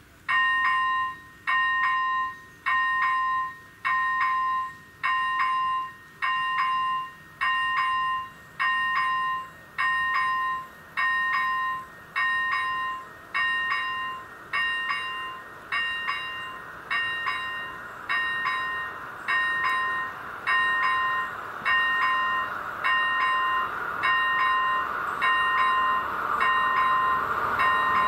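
Czech level-crossing warning bell ringing steadily, an electronic ding about once a second, as the crossing signals a train is coming. In the last several seconds the rumble of the approaching train grows beneath the dings.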